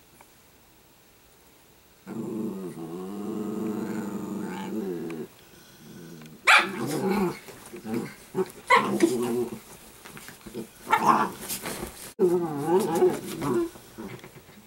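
Italian greyhounds play-fighting and growling: after a short lull comes one long, steady growl, then from about halfway a run of shorter, louder growls broken by sharp yips.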